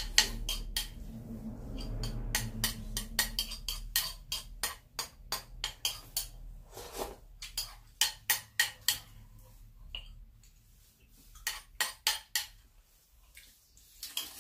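Metal spoons clinking and scraping against ceramic bowls, many quick irregular clicks, as two people scoop porridge. One bowl is tilted and scraped nearly empty.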